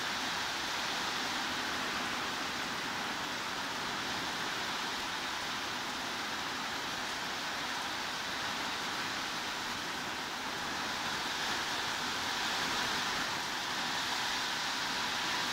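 Heavy rain falling in a steady, even hiss, swelling slightly a little after ten seconds in.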